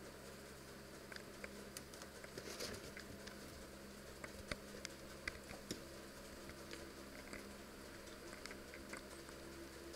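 Faint scattered clicks, taps and light rustling of rabbits moving about on hay and litter bedding, over a steady low hum in the room.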